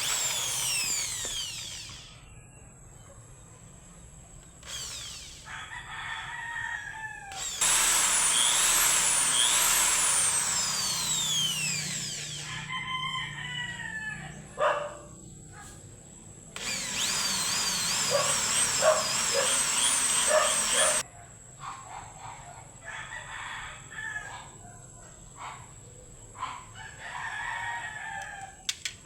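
Roosters crowing several times, with a power tool running in two stretches of a few seconds that start and stop abruptly.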